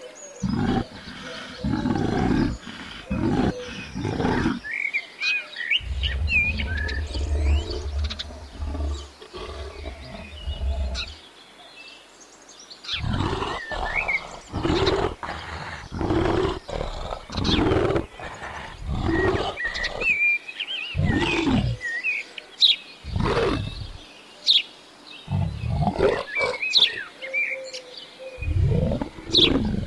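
Brown bears making repeated low grunting, moaning calls, each about half a second long, while two of them nurse from a sitting bear. Birds chirp faintly in the background.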